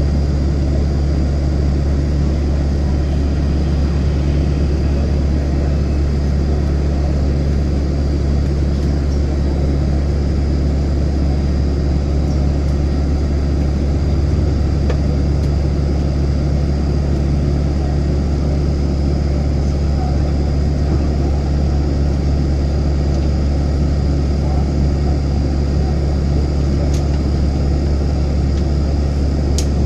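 Airbus A321-200 airliner cabin noise: a steady low rumble from the engines and airflow, with a faint steady high whine over it.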